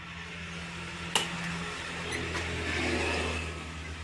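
An engine running steadily at a low hum, with one sharp click about a second in.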